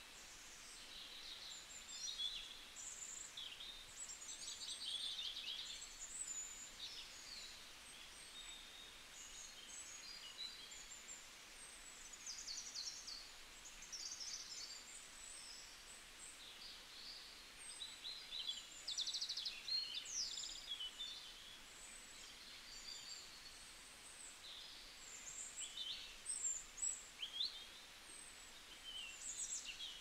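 Several wild birds singing and calling over one another: a steady stream of high chirps, trills and short gliding whistles over a soft background hiss.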